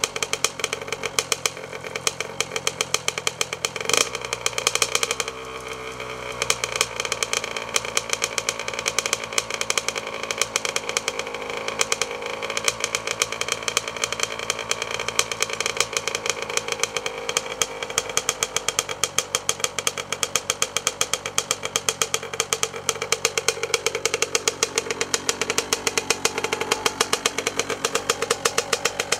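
2005 Honda CR85RB's 85cc single-cylinder two-stroke engine idling on its stock exhaust, still warming up from a cold start. Engine speed shifts briefly about four seconds in, with a sharp click, and drifts slowly again near the end.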